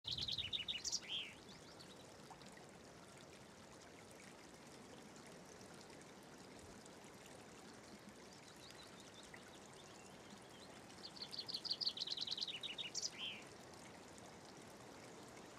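Small stream trickling and running steadily over stones. A songbird twice sings a short, fast phrase of repeated high notes ending in a flourish: once at the start and again about eleven seconds in.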